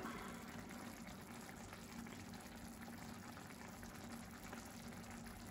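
Tomato sauce simmering in an open cast-iron casserole, a faint steady bubbling and popping, over a faint low hum.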